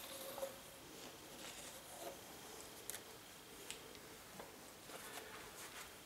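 Pencil tracing a line on a sheet of MDF: faint scratching, with a few light ticks.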